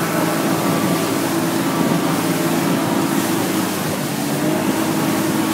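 Boat engine running steadily under way, with water splashing along the hull.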